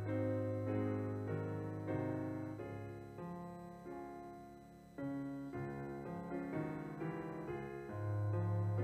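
Piano playing slow offertory music: sustained chords over deep bass notes. A chord dies away and a new one is struck about five seconds in.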